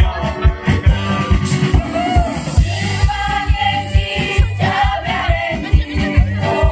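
Folk ensemble singing a Polish folk song as a group of voices in unison, with live band backing of a steady drum beat.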